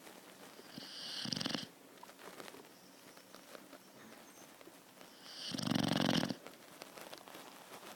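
Thai Ridgeback puppy snoring: two long snores about four and a half seconds apart, each building up and then cutting off sharply.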